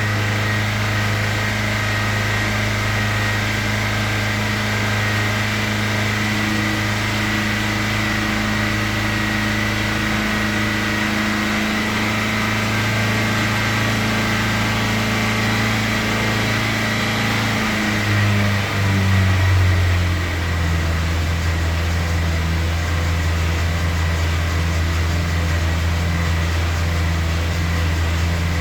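Hyundai Sonata engine held at steady high revs, around 3000 rpm, to try to clear a ticking from the engine. About 18 seconds in the revs dip and it settles at a slightly lower steady pitch.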